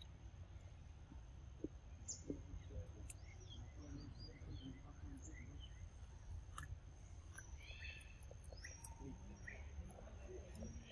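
Faint outdoor ambience: scattered short bird chirps over a low steady rumble, with a few soft clicks.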